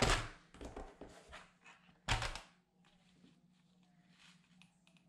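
Plastic craft tools being set down and handled on a tabletop: a knock at the start, a few lighter taps, and a heavier thunk about two seconds in, then only faint handling ticks.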